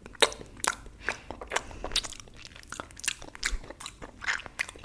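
Wet mouth sounds of a finger being sucked and licked: irregular smacks and pops, about two or three a second.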